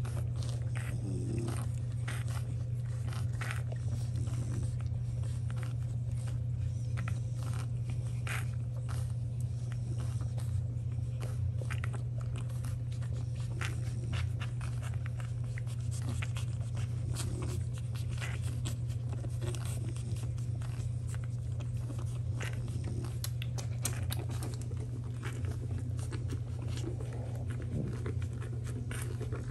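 Week-old French bulldog puppies suckling at their mother: a steady run of small sucking and smacking clicks over a steady low hum.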